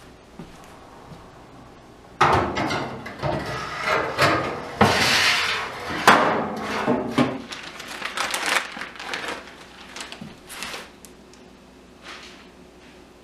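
A wire oven rack being slid into the oven of a Pioneer Princess wood cook stove, with metal scraping and a run of clattering knocks. It starts about two seconds in and thins out over the following several seconds.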